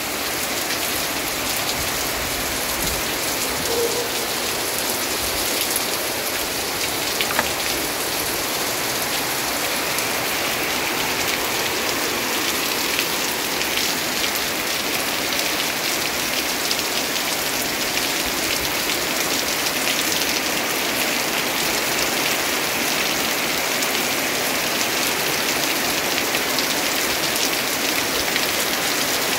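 Steady rain falling, an unbroken hiss with scattered drop ticks.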